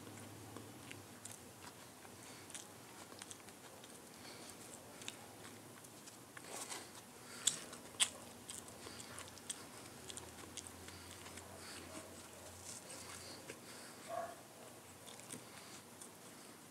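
A person biting and chewing bread rolls close to the microphone: faint wet mouth clicks throughout, with two sharper bites about halfway through.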